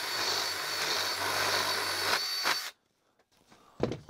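Cordless drill with a paddle bit running steadily with a thin high whine as it drills out the knockout holes in a zone control panel's plastic base. It cuts off abruptly about two and a half seconds in, and a single knock follows near the end.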